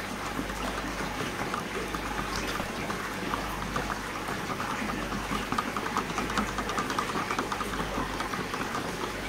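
A plastic stick stirring a molasses-and-EM4 mixture in a clear plastic cup: quick small taps and swishes of the liquid, busiest in the middle of the stretch, over a steady low hum.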